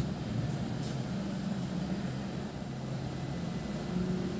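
Steady low background hum and noise, with one faint tap about a second in.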